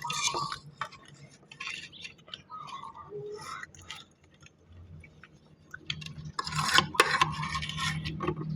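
Fork scraping and clinking against a plate while a last mouthful of noodles is gathered and eaten, in scattered small clicks and scrapes that grow busier after about six seconds in.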